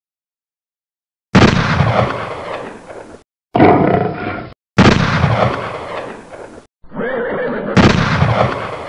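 Three pistol gunshot sound effects about three seconds apart, each a sudden loud bang with a long echoing fade. Between the first two shots comes a roaring animal sound effect, and between the second and third a shorter animal cry.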